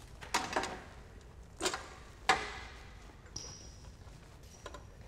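A few sharp clicks and knocks, the loudest about two seconds in, followed by a faint thin high-pitched tone that comes in twice.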